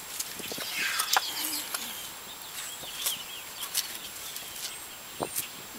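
Birds chirping outdoors, short high chirps scattered through, with a few sharp clicks and rustles close by.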